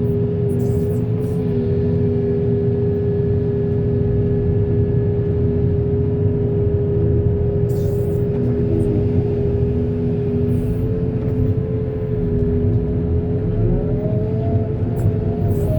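Diesel engine of earth-moving machinery running steadily with a constant hum and low rumble, with a short rising whine near the end.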